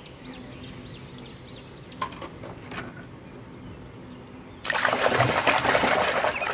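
Faint high chirps over a quiet stretch, with a couple of small clicks. About two-thirds of the way in, a hand starts sloshing and splashing a plastic toy around in a plastic basin of muddy water, loud and continuous.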